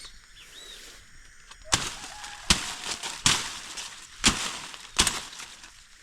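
Five sharp crunches of dry vegetation, each with a short rustling tail, spaced roughly a second apart.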